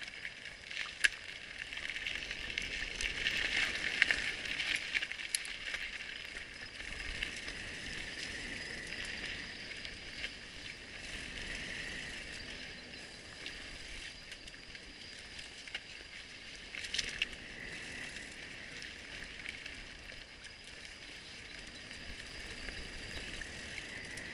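Mountain bike ridden along a dirt trail: steady rolling and rattling of tyres and bike, with sharp knocks about a second in and again around seventeen seconds, loudest around three to five seconds in.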